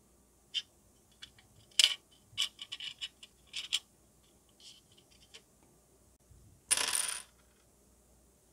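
Small plastic model-kit parts handled on a wooden desk: scattered light clicks and taps, one sharper click a little under two seconds in. A brief half-second clatter of small hard pieces comes about seven seconds in.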